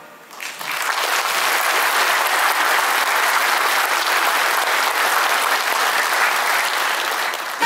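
Audience applauding at the end of a choir song, rising about half a second in after a brief hush and holding steady.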